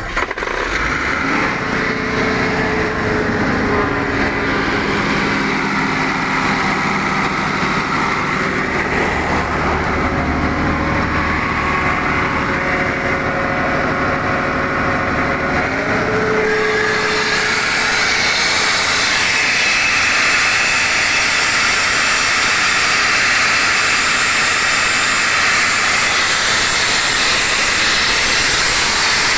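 Airman 655PDS diesel-driven screw air compressor running steadily. About 16 seconds in, a loud rushing hiss of air rises and stays on over the engine, which sounds fainter under it.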